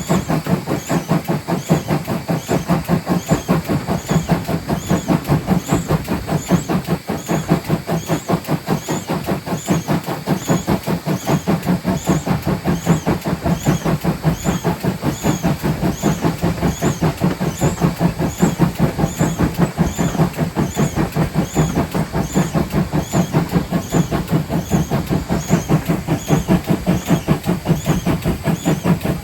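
GWR 57xx-class pannier tank steam locomotive running under way, with a steady rhythmic beat and the noise of its running gear.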